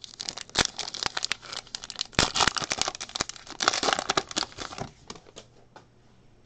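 Foil wrapper of a Panini Prestige basketball card pack being torn open and crinkled by hand: a dense crackling of foil that thins out about five seconds in.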